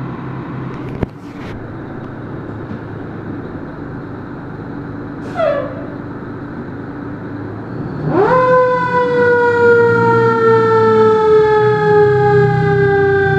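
Fire engine's engine running as it pulls out of the station, with a short falling siren chirp about five seconds in. About eight seconds in its siren winds up sharply, then holds a loud wail that slowly falls in pitch.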